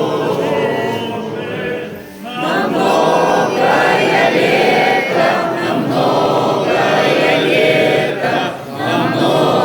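Choir singing a chant in several voices, phrase by phrase, with short breaks about two seconds in and again near the end.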